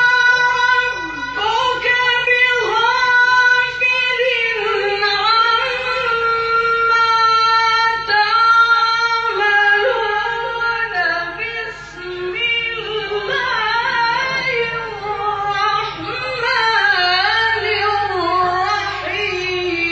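A man reciting the Quran in a melodic, sung style, his high voice holding long notes and winding through ornamented phrases. It opens on a long steady held note and slides down in pitch near the end.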